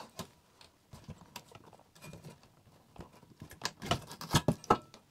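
Scattered clicks and knocks of a plastic power connector and wiring being worked loose inside a computer's sheet-metal chassis, with a quicker, louder run of knocks near the end.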